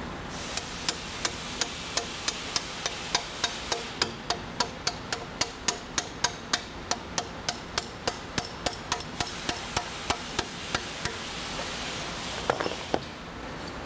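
Ball peen hammer tapping a punch to drive out the actuator's upper pivot pin: sharp, even taps about three a second for some ten seconds, then a short clatter near the end.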